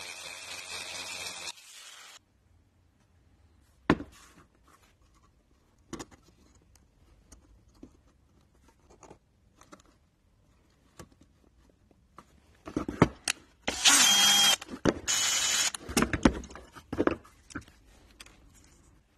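Handheld rotary tool whirring steadily against a small brass part, cutting off about a second and a half in. Scattered light clicks and taps follow as small brass parts are handled. About two-thirds of the way through comes a cluster of knocks, then two loud hissing bursts a little over a second apart.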